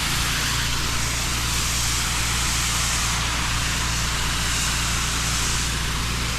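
Pressure washer running steadily: a low engine drone under the loud, even hiss of the water jet rinsing block paving.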